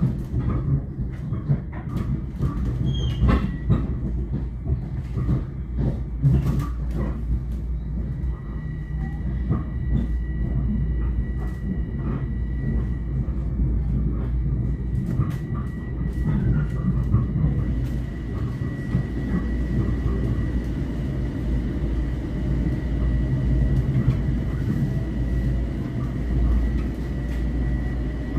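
Running noise inside a moving commuter rail car: a steady low rumble of wheels on rail, with sharp clicks over rail joints through the first several seconds and a thin, steady high whine that sets in a few seconds in.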